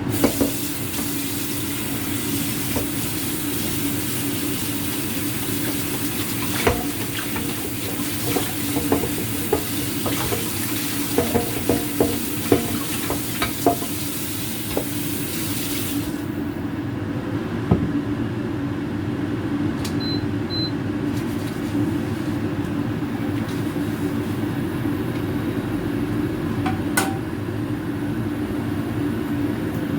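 Food sizzling in a frying pan, with a spatula clicking and scraping against the pan now and then. The sizzle cuts off abruptly about halfway through, leaving a steady low hum and a few more clicks.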